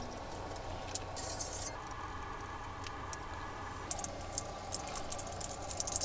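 Light metallic clicks and clinks of aluminum jig parts being handled and fitted together, and an Allen key working a bolt in an aluminum extrusion, the clicks coming thicker near the end. A steady hum sits underneath.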